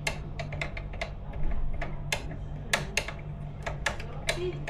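Irregular sharp clicks and taps, about one or two a second, over a steady low hum.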